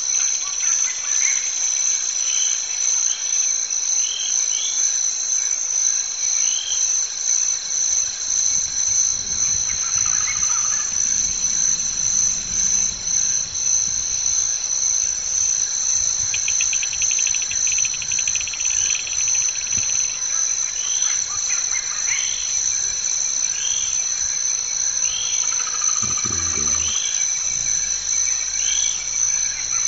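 Steady, high-pitched insect chorus with a fast pulse, overlaid by short bird chirps that recur every second or two and a brief fast ticking trill midway; a low thump sounds once near the end.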